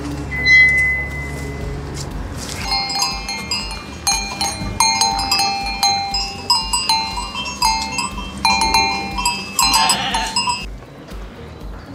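A bell on a grazing sheep's collar clinking and ringing again and again in quick clusters, starting about three seconds in.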